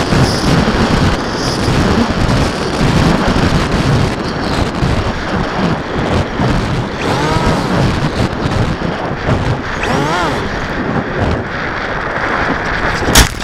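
Wind rush buffeting the onboard camera microphone of an FPV model aircraft in flight, with its motor and propeller noise swelling and falling briefly twice. Near the end a single sharp impact as the aircraft hits the grass.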